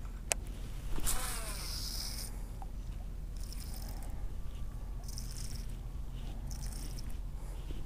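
Baitcasting reel on a cast: a sharp click, then about a second in the spool spins out with a whir that falls in pitch as the line pays out. Then the reel is cranked in short spurts every second or so as the lure is worked back, over a steady low rumble.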